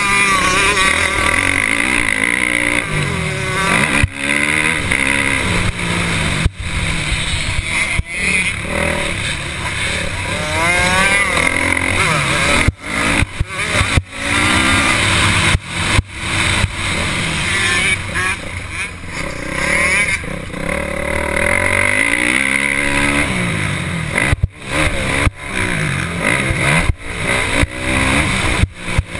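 Motocross dirt bike engine, heard from on board, revving up and down through the gears as it is ridden hard around the track. The sound dips sharply many times as the throttle is chopped.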